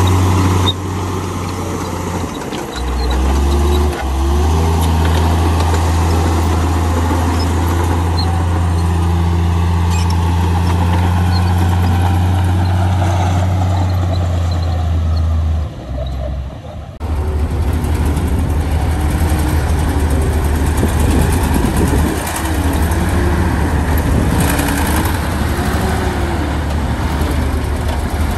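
Heavy diesel engine of a crawler bulldozer running steadily while it pushes soil. About seventeen seconds in, the sound changes abruptly to a rougher, pulsing diesel engine, that of a dump truck.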